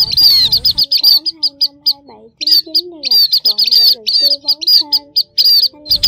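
Small munias calling: a rapid run of high, thin chirps, several a second. Beneath them run lower calls that bend up and down in pitch, several held for about half a second. The chirping breaks off for a moment a little after two seconds.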